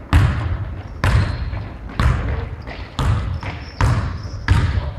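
A basketball dribbled on a hard court floor: six bounces about a second apart, each a sharp thud with a short echo.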